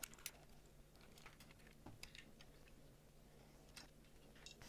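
Faint, scattered small clicks and ticks of a small Allen key turning a screw out of the rear fender mount of a Xiaomi Mi 1S e-scooter, over a quiet hum.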